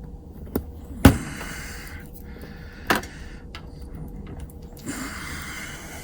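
Sharp metal clicks and knocks, the loudest about a second in and another near three seconds, with scraping between them, as a small screwdriver works on a picked Yale padlock to take it apart.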